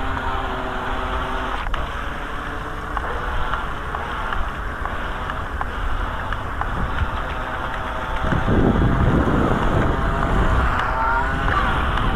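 Electric motor of a toy radio-controlled boat whining as it runs on the water, its pitch rising near the end. Wind buffets the microphone from about eight seconds in.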